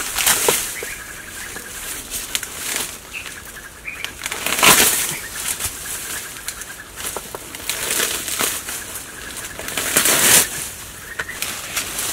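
Dry, fibrous palm-stump debris being ripped apart and thrown aside by hand and struck with a stick: a continuous rustling and tearing, with louder bursts about half a second in, near the middle, and twice more toward the end.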